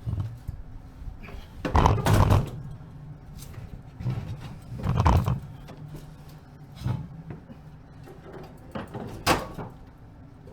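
A series of knocks and scrapes, four louder ones a few seconds apart, over a steady low hum.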